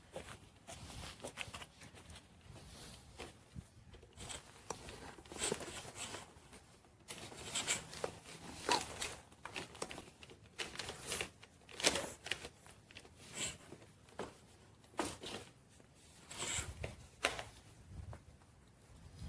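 Irregular handling noises in a small room: scattered rustles with light clicks and knocks, some sharper than others.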